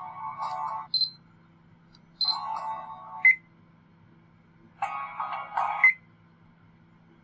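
Brief snippets of music from a laptop's playback, about a second each and three in all, each cut off as Windows Media Player skips to the next track from the Sony Vaio Jog Dial remote, with short high beeps between them.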